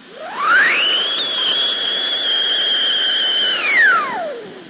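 Cock Brand siren anaar, a ground-fountain firework with a built-in whistle, sounding its siren: one long shriek that rises steeply in pitch over about a second, holds a high steady note, then falls away near the end. The fountain's spark hiss runs beneath it.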